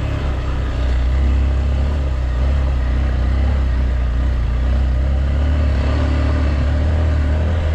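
Motor vehicle running steadily on a trail, a constant low engine drone with road noise, heard from on board.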